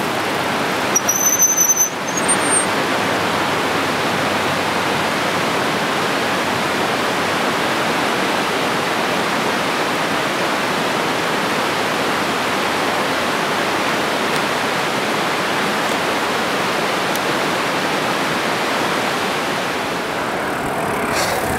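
Fast, shallow river rushing over gravel riffles: a steady, even rush of water. A brief high chirp sounds about a second in.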